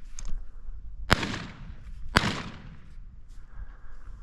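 Two shotgun shots about a second apart, each with a fading echo trailing off behind it.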